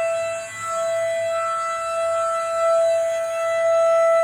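Outdoor tornado warning siren sounding its test wail on one steady, level pitch. Its loudness dips about half a second in, then swells and fades slowly, loudest near the end.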